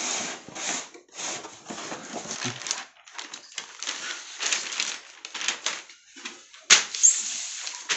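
Paper and plastic packaging rustling and being handled in irregular bursts, with one sharp knock about two-thirds of the way through.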